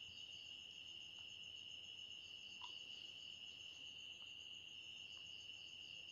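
Faint, steady high-pitched trilling of crickets, with a few faint ticks as a drawing compass is handled.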